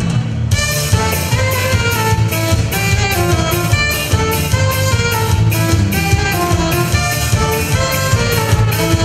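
Live band playing an instrumental passage: a drum kit keeps a steady beat that kicks in about half a second in, under a saxophone melody.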